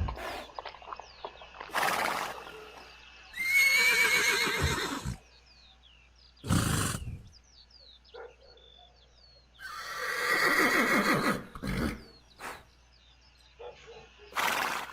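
Horses neighing: two long, quavering whinnies, with short noisy blasts between them. Faint bird chirps sound in the quieter stretches.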